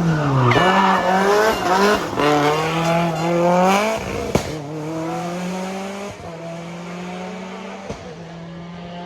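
Rally car engine revving hard and climbing through gear changes, with a sharp crack about four seconds in. The engine note then settles and fades as the car moves away.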